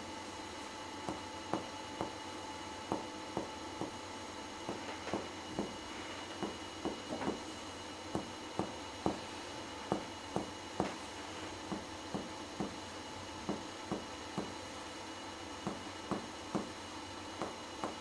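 Finger-on-finger percussion of the chest: a doctor's hammer finger taps the pleximeter finger pressed against a patient's chest wall, in short sharp taps, often in pairs, about one or two a second. This is comparative lung percussion, alternating between matching spots on the right and left sides to compare the percussion note, which is found to be a clear pulmonary note.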